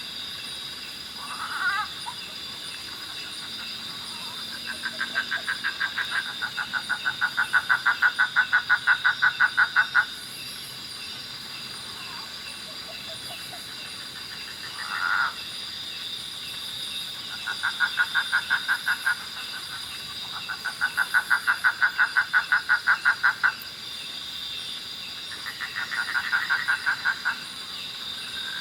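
A frog calling at night in long trains of rapid pulses, each train lasting a few seconds and repeated several times, with a few short single calls between. Underneath runs a steady high-pitched insect drone.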